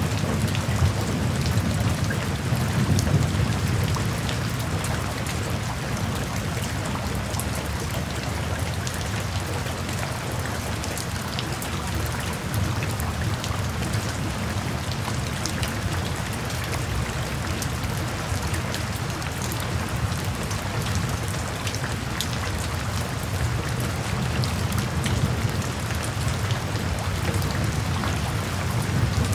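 Steady rain with raindrops pattering, over a low rumble of thunder that is heaviest in the first few seconds and then eases.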